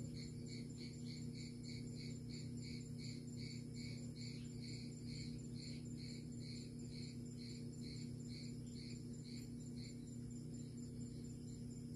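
An insect chirping in a steady rhythm, about three chirps a second, stopping near the end, over a steady low hum.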